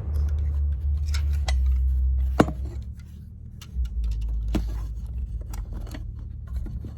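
Scattered light clicks and taps of small plastic and glass radio parts being handled and peeled apart, over a steady low hum that drops out for about a second near the middle.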